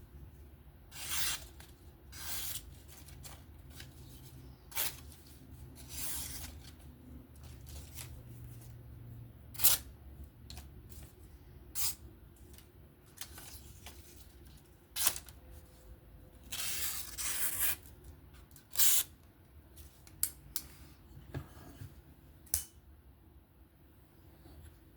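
Folding knife blade making a dozen or so short, irregular scraping and slicing strokes, the longest about a second long, with a few sharp clicks in between.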